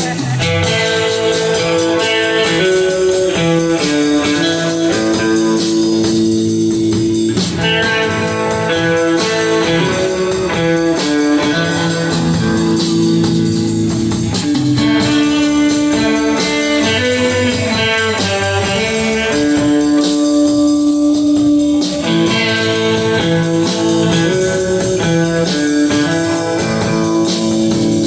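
Live rock band playing an instrumental: a guitar carries the melody in long held notes over bass and drums.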